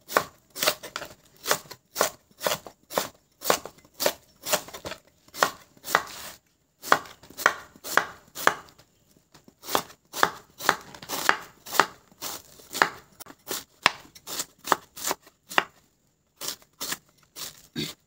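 Kitchen knife slicing through a banana blossom and striking a wooden cutting board, in steady strokes about two a second with a few short pauses.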